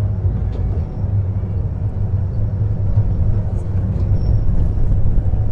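Miniature park train running steadily along its track, with a constant low engine hum.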